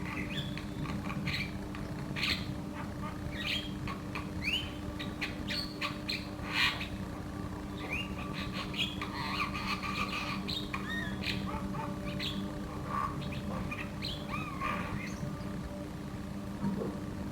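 Javan myna singing continuously: a rapid, varied run of harsh squawks, whistles and short rising chirps, over a steady low hum.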